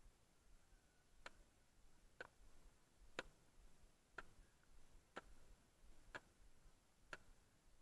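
Faint, even ticking: seven sharp clicks about a second apart.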